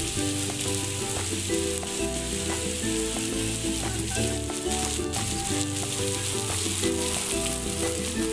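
Water jetting from a naga statue's fountain and falling like a shower, a steady hiss, with background music underneath.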